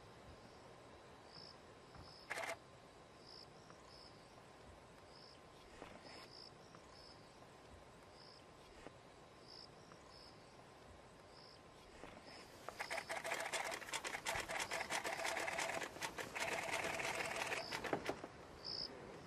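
Night insects chirping faintly and regularly. A little past the middle, a leopard feeding on a carcass: a loud stretch of about six seconds of dense, rapid crunching and tearing.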